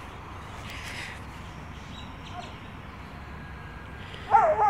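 Faint outdoor background noise, then near the end an animal gives a loud, wavering call.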